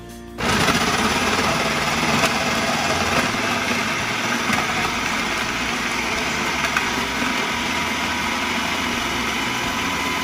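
Electric food processor switched on about half a second in, its motor running steadily at full speed as carrots are fed through the tube and shredded.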